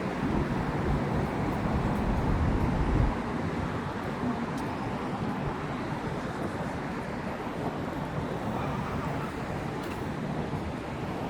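City street traffic noise, steady, with a heavier low rumble from a vehicle that drops away sharply about three seconds in.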